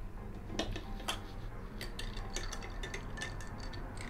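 A metal spoon stirring an iced drink in a glass tumbler, clinking irregularly against the glass and the ice cubes.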